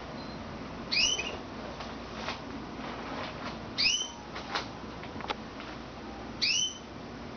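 Canary giving a short, whistled call note three times, roughly every two and a half seconds, with a few faint clicks in between.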